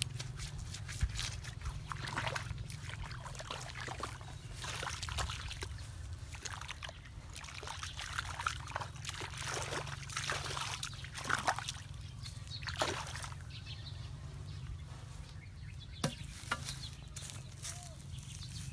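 Muddy water sloshing and trickling in a shallow dug channel as it is worked by hand and foot, with irregular splashes and scuffs, busiest in the middle.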